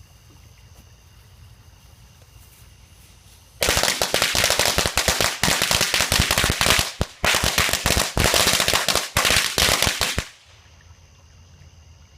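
Firecrackers going off in a fast, loud run of cracks lasting about six and a half seconds. They start about three and a half seconds in, slacken briefly twice, and stop suddenly.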